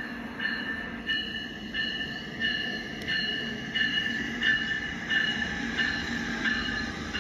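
Motorized LEGO train running along plastic LEGO track: a steady low hum with higher whirring tones that pulse in an even beat, about one and a half times a second.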